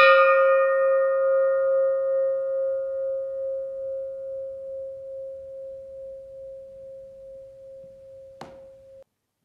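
A single struck bell-like chime: one clear ringing tone with a bright, quickly fading overtone shimmer, dying away slowly over about nine seconds. It is cut off suddenly near the end, with a faint click shortly before the cut.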